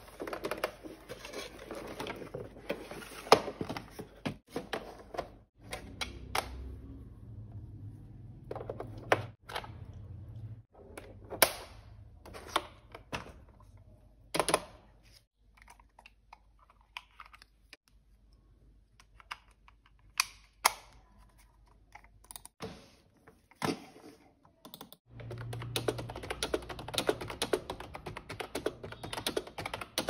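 Packaging rustling with scattered clicks and knocks as a wireless keyboard and mouse are unboxed and handled. Near the end, quick continuous typing on an iGear wireless typewriter-style keyboard with round keycaps, a rapid run of key clicks.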